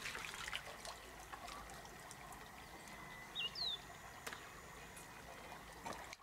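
River water trickling and splashing, with scattered small splashes and clicks and two short chirps about halfway through.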